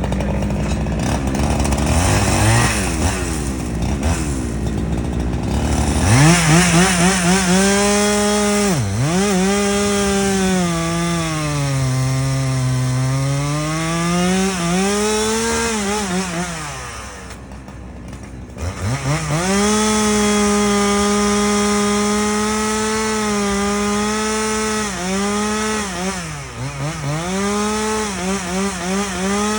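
Chainsaw cutting through a live oak trunk. Its pitch sags as it bogs under load in the cut and climbs again several times. Near the middle it drops briefly to a low idle, then revs back up; a lower, steadier engine sound precedes it in the first few seconds.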